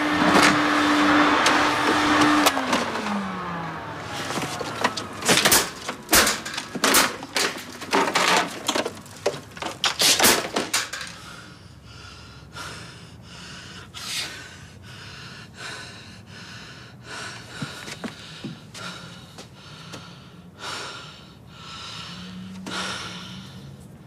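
Upright vacuum cleaner running, its motor winding down and stopping about two and a half seconds in. A run of loud bangs and thuds follows as the vacuum cleaner is beaten, then fainter scattered knocks.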